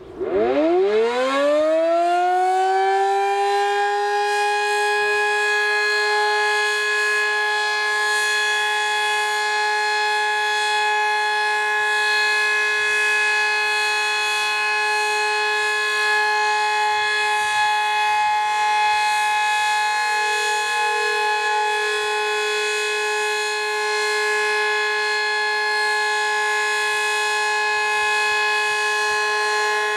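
Sterling M-10 outdoor warning siren with an 8/16 port rotor, tested. It winds up from silence in a fast rising whine over the first two to three seconds, then holds a loud, steady two-note tone an octave apart.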